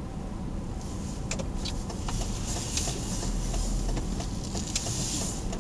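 Hummer H2 rolling slowly along a street, heard from inside: a steady low engine and road rumble, with a hiss that swells over the middle few seconds and a few light clicks.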